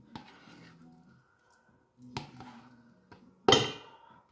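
Metal spoon knocking against a stainless steel pot and a plastic tub while curd cheese is scraped out: a light click about two seconds in and a louder, briefly ringing knock about three and a half seconds in.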